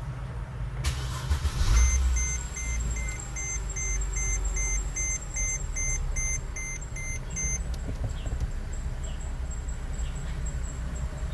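Mercedes-Benz ML350's V6 engine cranking and catching about two seconds in, then idling steadily. A rapid electronic chime from the car beeps about two or three times a second for some six seconds over it, then stops.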